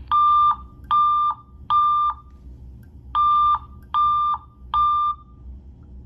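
Fire alarm speaker strobe sounding a steady single-pitch tone in the temporal-three evacuation pattern: three short beeps, a pause, then three more. This three-pulse code is the standard signal to evacuate the building.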